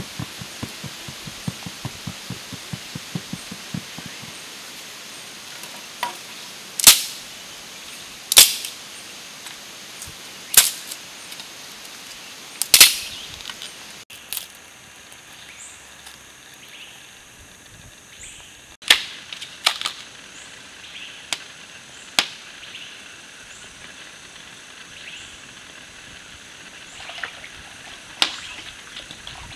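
Dry sticks being snapped by hand: about nine sharp, loud cracks spread through the stretch, some in quick pairs, over the steady rush of stream water. A quick run of soft taps comes at the start.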